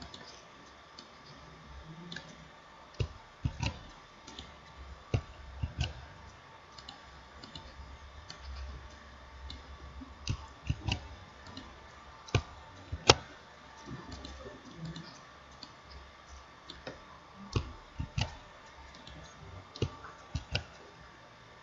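Computer mouse clicking at an irregular pace, single clicks and some quick pairs, over a faint steady hum.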